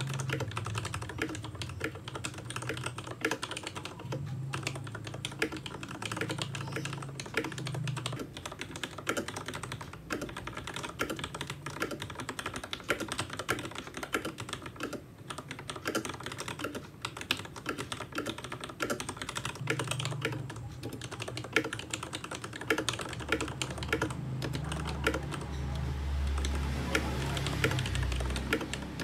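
Fast, continuous typing on a Ducky Shine Zero mechanical keyboard: a dense, irregular clatter of key switches and keycaps bottoming out, played as a typing test of its keycaps.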